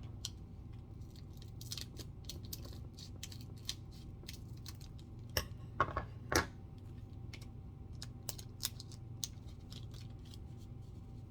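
A trading-card pack being opened and its cards handled: a run of small crinkling crackles and clicks, with a few sharper ones about halfway through.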